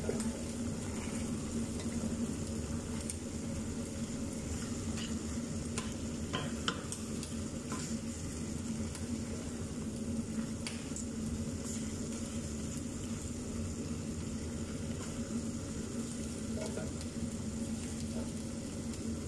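Chicken pieces simmering and sizzling in a thin spiced sauce in a stainless steel pot. A wooden spatula stirs them and gives short scrapes and clicks against the pot every few seconds.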